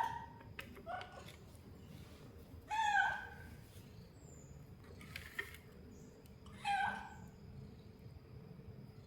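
A cat meowing in short calls: a faint one about a second in, then two louder meows around three and seven seconds in.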